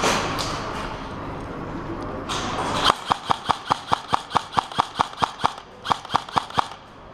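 An airsoft rifle firing rapid single shots, about five a second, starting about three seconds in with a short pause near the end. Before the shots there is a steady noisy hiss.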